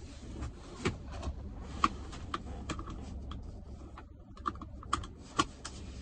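A series of irregular light clicks and taps, about a dozen spread unevenly, over a steady low rumble.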